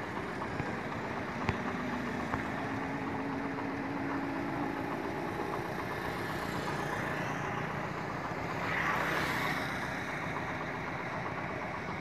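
Steady rumble of road traffic with an engine running, swelling as a vehicle passes about nine seconds in; a single sharp click about a second and a half in.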